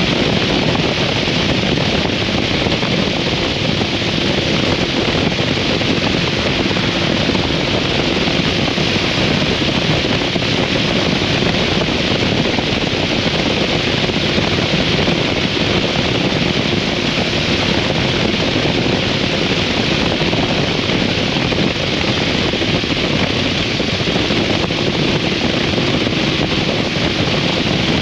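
Wind rushing over the microphone on a 2003 Harley-Davidson V-Rod at a steady cruising speed, with the liquid-cooled Revolution V-twin holding a steady, even note underneath.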